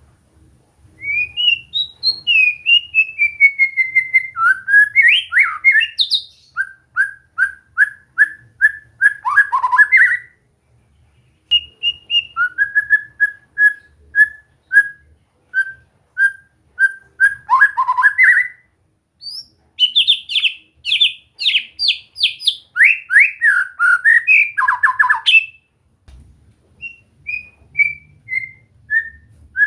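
White-rumped shama (murai batu) singing in loud, clear whistled phrases. The song moves from a falling run of notes to series of short identical notes at about two a second, and then to bursts of fast sweeping notes, with brief pauses between phrases.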